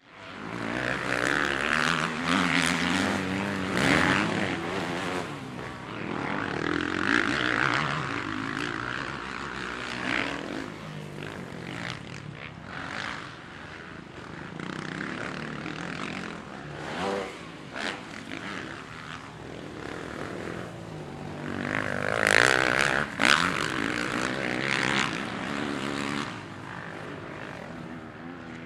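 Motocross motorcycle engines revving hard, their pitch rising and falling as the throttle opens and closes. The sound swells and fades as the bikes come near and pull away, loudest about three-quarters of the way through.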